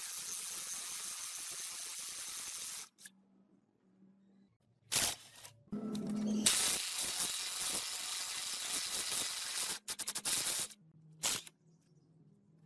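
Compressed air hissing from a spray nozzle in two long, steady bursts of about three and four seconds, with a few short blips between them.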